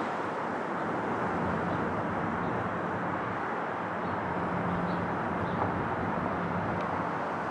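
Steady, distant rumble of a Boeing 777 airliner's jet engines as it comes in to land.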